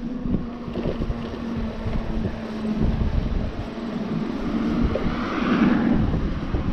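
Wind buffeting the microphone of a rider on a moving e-bike, a dense low rumble with gusts. A low steady hum runs through the first half, and a swell of hiss rises a little past the middle.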